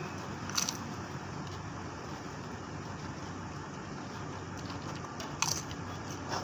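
Steady low mechanical hum, engine-like, with a few short sharp clicks about half a second in and again near the end.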